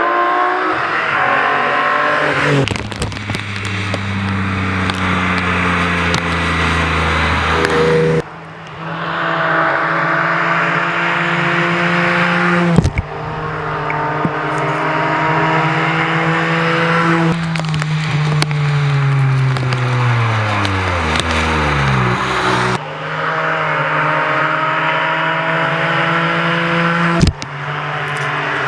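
Rally car engines at high revs in a string of short passes, each car's note rising and falling through the gears. One engine's pitch slides steadily down over several seconds as that car passes and moves away.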